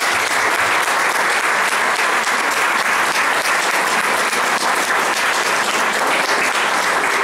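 Audience applause: many people clapping in a dense, steady patter.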